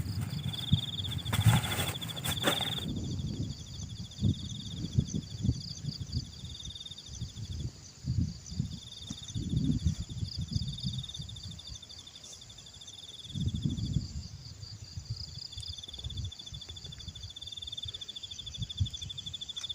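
A chorus of insects chirring in steady, rapidly pulsed high-pitched trills, with irregular low bumps and rustling nearer the microphone. A louder burst of rustling noise comes in the first couple of seconds.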